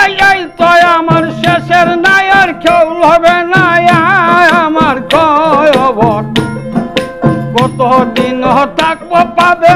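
Bengali murshidi folk music: a plucked dotara and a one-string instrument play over a steady rattling hand-percussion beat, with a man's voice holding long wavering notes without words.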